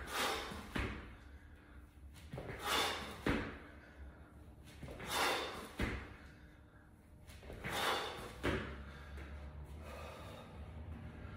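A person doing burpees on a rubber gym mat: four reps about two and a half seconds apart, each a loud, heavy breath followed by a sharp thud. Steadier hard breathing follows after the last rep.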